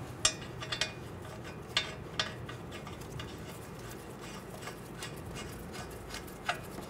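Light metallic clinks as steel nuts are handled and threaded by hand onto the strut-to-knuckle bolts: several sharp clicks in the first couple of seconds and one more near the end.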